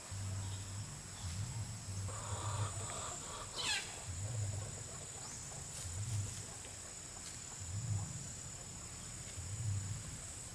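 Outdoor morning ambience of insects keeping up a steady high-pitched drone. A low pulsing sound comes and goes every second or two, and a bird gives a sharply falling whistle about three and a half seconds in.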